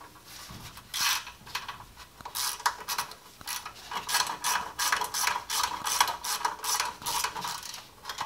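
Ratchet wrench clicking in quick back-and-forth strokes as it loosens a bolt holding the parking brake cable to the rear brake backing plate. A few separate clicks at first, then about two strokes a second, each a short run of clicks, from about two seconds in.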